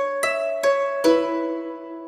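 Background music: plucked-string notes, harp-like, three struck in quick succession in the first second and the last left ringing and fading.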